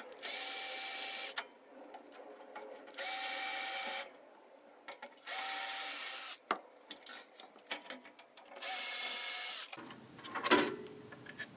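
Power screwdriver running in four short bursts of about a second each, spinning out the four screws that hold the power supply's mounting plate to the display's back door. A sharp clink comes near the end.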